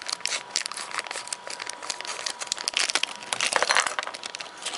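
Thin clear plastic bag crinkling and crackling in the hands as it is cut open and pulled off a small toy figure, a dense run of small crackles.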